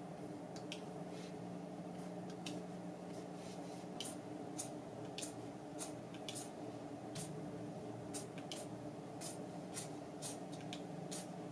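Stylus nib on a pen-display drawing tablet's screen making short, quick drawing strokes that sound as brief scratches, coming irregularly and more often from about four seconds in. Under them runs a steady low hum.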